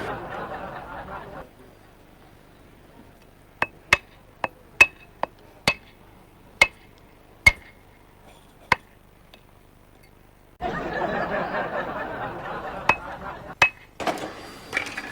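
Metal tapped with a hammer, about ten sharp ringing strikes spaced irregularly over five seconds, typical of a repairer knocking a bent aluminium pressure cooker back into shape. A steady rushing noise comes before the taps and starts again after them.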